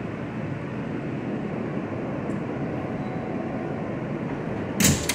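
Inside an R160 subway car as it pulls into a station: the steady rumble of the wheels and running gear, with a short, loud burst of noise near the end as the train comes to a stop.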